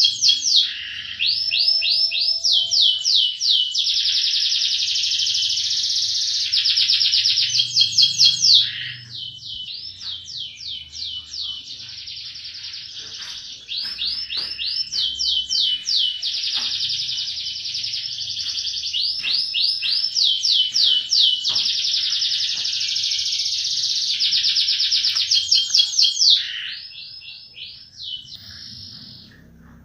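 Domestic canary singing a long song of fast rolling trills. The song is nearly continuous, softens for a few seconds about nine seconds in, and fades out near the end.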